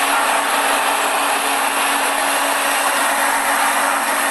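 LiuGong single-drum road roller running steadily, a constant mechanical drone with a hiss over it and no change in pitch.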